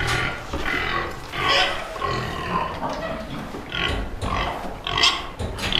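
Domestic pigs squealing in several bursts at feeding time.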